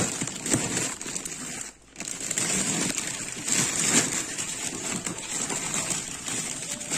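Clear plastic freezer bags crinkling and rustling as they are handled and pushed onto a freezer's wire shelf, with a brief lull about two seconds in.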